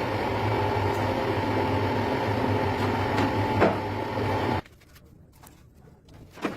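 A steady mechanical hum from a running motor or engine, with one click partway through. It cuts off abruptly about four and a half seconds in, leaving quiet with a faint click or two near the end.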